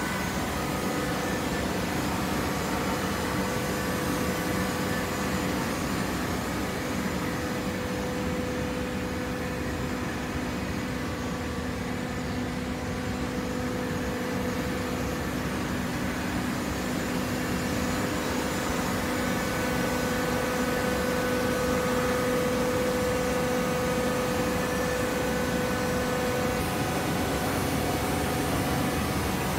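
Automatic horizontal baler for shredded paper running with its feed conveyor: a steady machine hum with a few held tones, a little louder past the middle.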